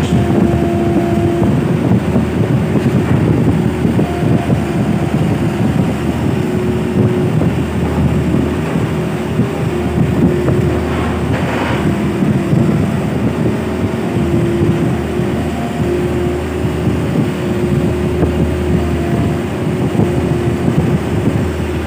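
Kubota mini excavator's diesel engine running steadily under load as the machine digs and shifts about on its tracks, with a whine that comes and goes as the controls are worked.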